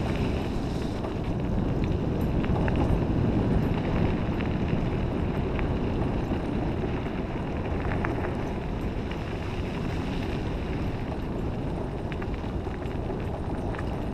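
A dog scooter rolling over a muddy dirt and gravel trail: a steady rumble of its tyres with occasional faint ticks, and wind on the microphone.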